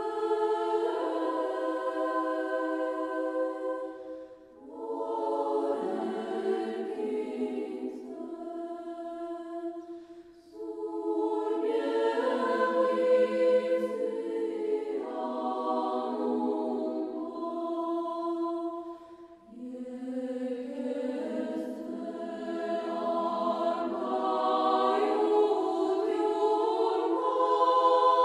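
A congregation of people singing a hymn together, in long sustained phrases with brief breaks between them.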